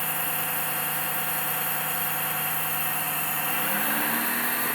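1/14 scale radio-controlled hydraulic excavator running: a steady engine-like drone with a whir from its sound unit and hydraulic pump, rising in pitch near the end.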